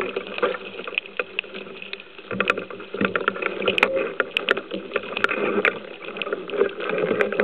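Turbulent water and bubbles heard through an underwater camera housing, a muffled churning that rises and falls unevenly, with scattered sharp clicks and knocks.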